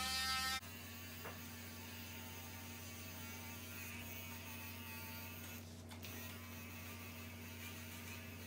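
Electric dog grooming clippers running with a steady buzzing hum as they trim fur. Background music cuts off about half a second in.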